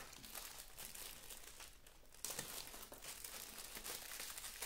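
Clear plastic accessory bags crinkling as hands handle them, a faint run of fine crackles that gets louder about two seconds in.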